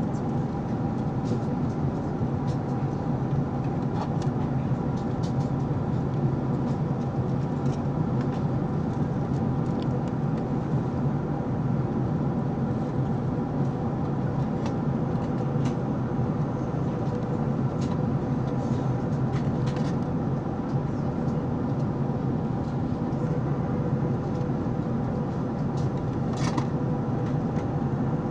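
Steady cabin noise of an Airbus A380 in cruise, heard from inside the cabin: an even, low roar of airflow and engines with a few faint steady hums above it.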